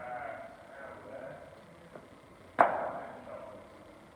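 A cricket ball struck once with a loud, sharp crack about two and a half seconds in, ringing on in a large hall. A faint knock comes just before it.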